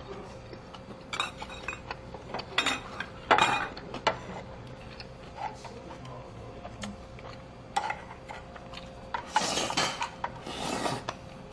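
Chopsticks and utensils clinking and scraping against stoneware bowls and a small side-dish plate, with a few sharp clacks, the loudest a little over three seconds in. Near the end come a couple of seconds of close-up eating noises as food goes into the mouth.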